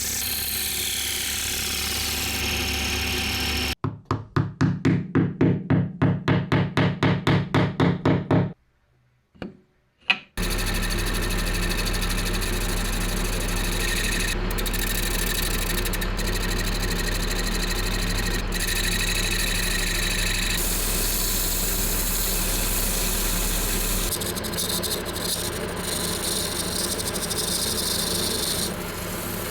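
Workshop power tools running: a steady machine run, then a stretch of rapid even pulses at about three or four a second, a brief pause with two knocks, and another long steady machine run with a low hum.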